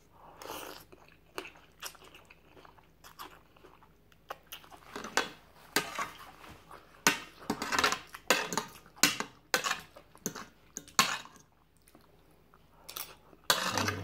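A person chewing and crunching mouthfuls of spicy mixed-seafood papaya salad, in irregular crunches. The crunches are sparse in the first few seconds and come thick and fast in the middle, with a short lull near the end.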